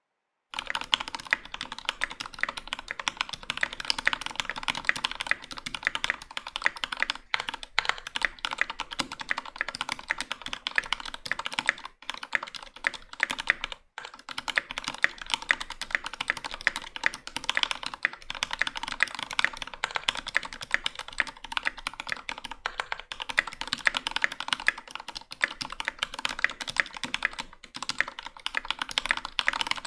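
Velocifiretech KK75 mechanical keyboard (aluminium half-plate, Gateron Ink Black linear switches, GMK keycaps) typed on fast and continuously, with a few short pauses.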